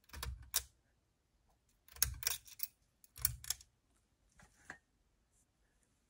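Four short clusters of clicks and knocks, about a second apart, from a hand working the switch on a small ceiling fan's motor housing.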